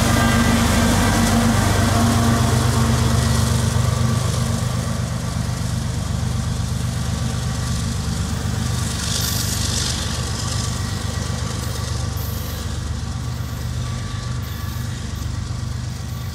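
CSX freight train's diesel locomotive running past with steady engine drone and wheel-on-rail noise, slowly fading as it moves away.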